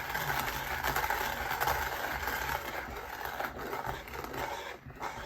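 Cafflano Klassic hand grinder's ceramic burrs crushing coffee beans as the handle is turned: a steady gritty crunching that dies away near the end as the last beans go through.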